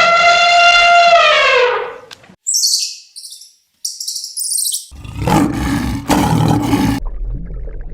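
A run of different animal calls: a long, loud pitched call that drops in pitch as it ends, then a series of high bird chirps, then a rough roar about five seconds in.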